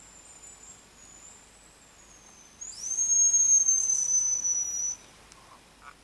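Thin, high hazel grouse whistles. A faint, long, wavering whistle is followed about two and a half seconds in by a much louder one, held for about two seconds and falling slightly in pitch before it cuts off.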